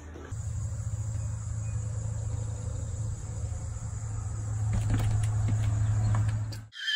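A steady low hum with a faint, high, steady whine above it, and a few light taps about five seconds in. It cuts off suddenly near the end as a child's high squeal begins.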